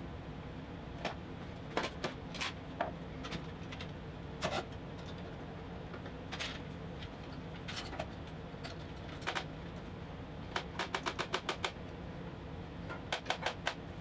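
Metal bar clamps being slid into place and tightened: scattered sharp clicks and clacks, with two quick runs of clicks in the second half.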